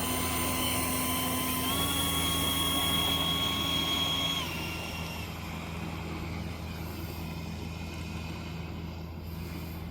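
Motor of a 3D-printed T2 Buckeye RC model jet run up on the ground: a steady whine that steps up in pitch about two seconds in, then cuts back about four and a half seconds in, leaving a quieter steady hum.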